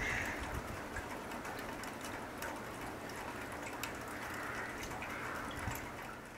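Faint outdoor ambience: a steady hiss with scattered light ticks, fading out near the end.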